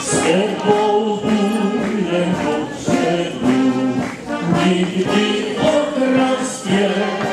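A brass band playing a hymn in slow held notes, with voices singing along.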